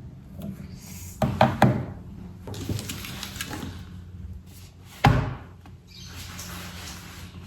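Objects being handled and set down while items are unpacked: a quick cluster of knocks just over a second in, lighter clicks and rustles, and a heavier thud about five seconds in, over a low steady hum.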